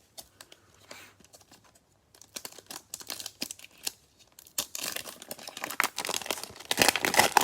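Trading-card pack wrapper being torn open and crinkled: an irregular crackle, sparse at first and growing denser and louder toward the end.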